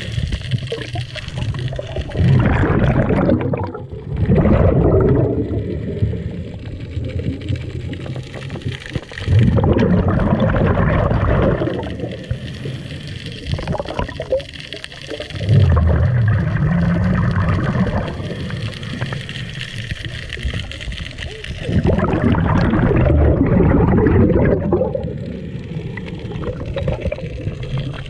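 Scuba diver breathing underwater through a regulator: bubbly exhalations that swell up every few seconds, with quieter stretches between breaths.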